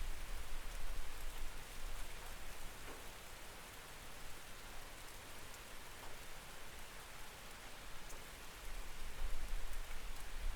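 Steady rain falling on a window, an even hiss with scattered drop ticks. A low rumble fades over the first second and builds again near the end.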